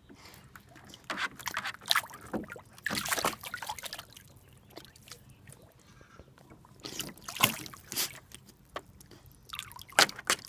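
A puppy splashing and sloshing water in a plastic kiddie pool with her muzzle, as she blows bubbles and snaps at them, in irregular bursts, the loudest about seven and a half seconds in and at ten seconds.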